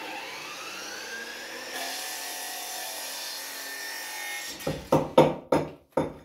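Electric chop saw spinning up with a rising whine, then its blade cutting through a laminate board for a couple of seconds. From about four and a half seconds in, a quick run of sharp knocks, about three a second, from hammering at the wall.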